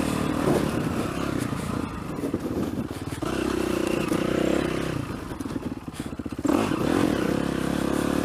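Dirt bike engine running under load on a trail. It drops off as the throttle closes twice, around two to three seconds in and again from about five to six and a half seconds, then picks up sharply as it is opened again.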